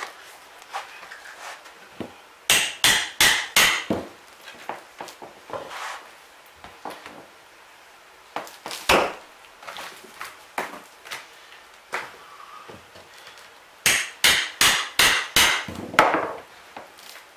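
Hammer blows on a steel pry bar, driving it under rotten plywood subfloor. The blows come as a quick run of about five near the start, a single one midway, and six or seven more near the end, with softer knocks of wood in between.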